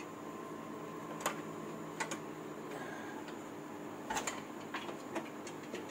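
Scattered light clicks and knocks as a hand pushes between the hoses and plastic parts of a car's engine bay, a few irregular ticks over a steady background hum.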